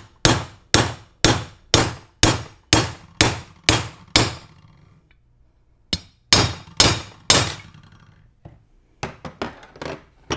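Hammer blows on a race driver set on the rear bushing of a Muncie 4-speed's aluminium extension housing, driving the bushing down into its bore. About nine sharp metallic strikes, two a second, then a pause, four more blows, and a few lighter clinks near the end.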